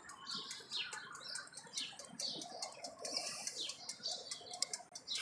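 Small birds chirping: many short, high chirps at an irregular pace, several a second.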